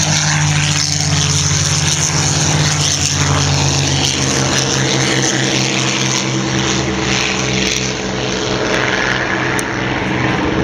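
Vintage WW2 piston-engined propeller aircraft running loud and steady as they take off on a scramble.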